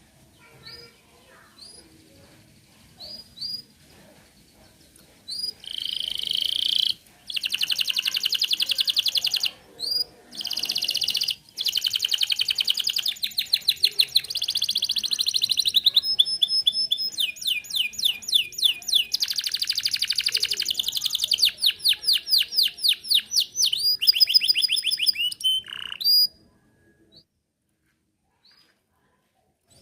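Canary singing: a few short faint chirps, then a long unbroken song of fast rolling trills that shift to a new note pattern every second or two, ending abruptly a few seconds before the end, followed by a few faint chirps.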